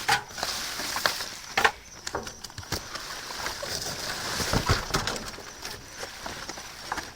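Rummaging through trash bags in a dumpster: plastic crinkling and rustling with items knocking together, a sharp knock about one and a half seconds in and a heavier thud about four and a half seconds in.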